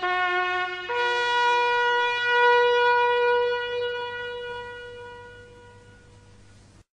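Closing bars of music on a reedy wind instrument: after a few short repeated notes, a higher note comes in about a second in and is held, swelling and then slowly fading until the sound stops shortly before the end.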